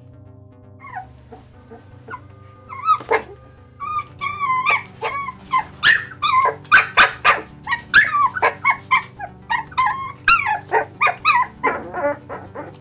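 Giant Schnauzer puppies whining and yelping in a rapid string of short, high calls. The calls start sparse, come thick from about three seconds in, and thin out near the end, over quiet background music.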